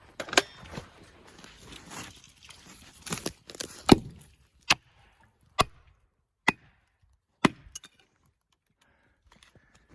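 Sharp, evenly spaced blows on wood, about one a second, the loudest about four seconds in, during felling of a leaning tree; a few seconds of rustling and cracking come before them.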